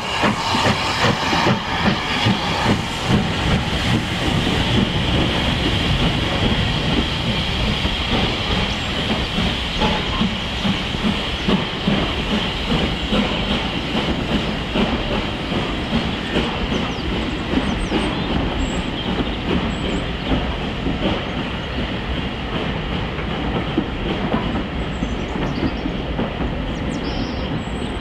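Coaches of a steam-hauled passenger train rolling past, their wheels clicking steadily over the rail joints. A steam hiss from the Southern Railway Q class 0-6-0 locomotive fades away over the first few seconds as it draws off.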